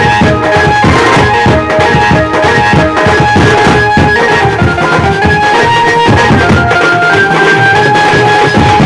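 Konkan benjo band playing loudly: an amplified Indian banjo (bulbul tarang) picks out a melody of held notes over dense, driving drumming.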